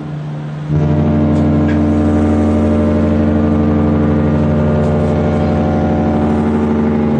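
Cruise ship's horn sounding a long, loud, deep steady blast that starts suddenly about a second in, after a brief quieter gap.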